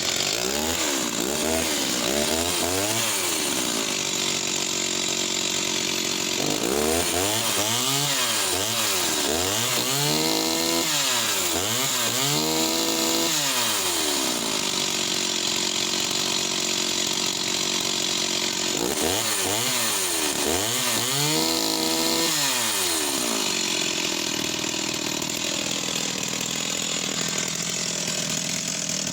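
Stihl 028 AV WoodBoss Super 47cc two-stroke chainsaw running, its throttle blipped in quick rev-ups and drop-backs in three spells, then settling into a steady idle near the end.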